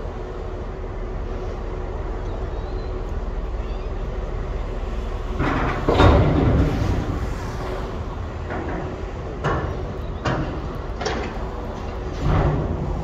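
Port ambience by a docked ro-ro ferry: a steady low rumble with a faint even hum. A louder clattering stretch comes about six seconds in, then several sharp knocks and clanks spaced about a second apart.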